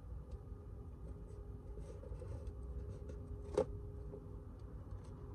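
Faint handling of a paper-covered cardboard box on a glass tabletop: light rustles and small taps over a low room hum, with one sharp tap about three and a half seconds in.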